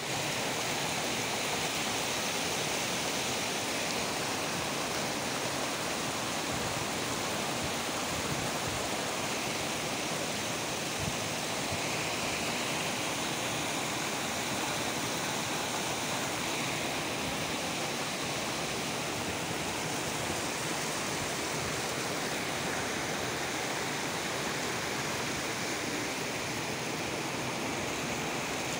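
Waterfall: a steady rush of falling water that never lets up.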